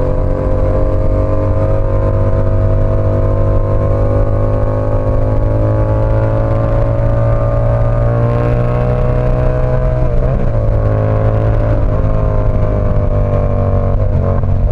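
Yamaha R7 motorcycle's 689 cc parallel-twin engine running under way, its pitch climbing slowly for the first several seconds, wavering briefly about ten seconds in, then holding nearly steady.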